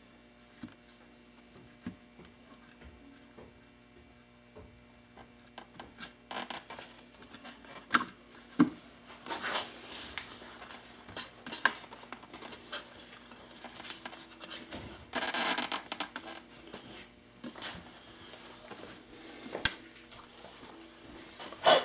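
Backrest bracket being set on, shifted and lifted off a motorcycle's rear fender by hand: scattered light knocks and rubbing, with a longer scrape about two-thirds through and a sharper knock near the end.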